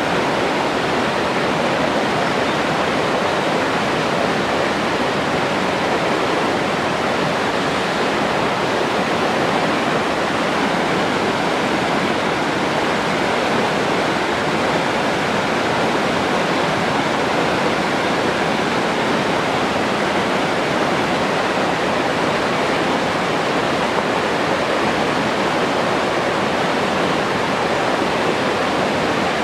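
Forest stream flowing over rocks: a steady, even rush of water with no change in level.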